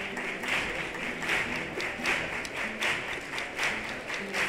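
Audience clapping in time, a clap burst roughly every three-quarters of a second, over instrumental music with held notes.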